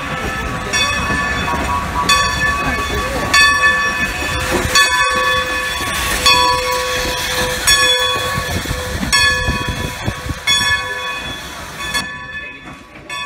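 Strasburg Rail Road No. 90, a 2-10-0 steam locomotive, moving slowly past close by. Its bell rings about once a second over a low rumble from the running gear.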